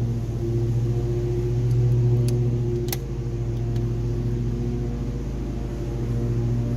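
A lawn mower engine runs steadily with a low hum and shifting overtones. A single sharp click sounds about three seconds in.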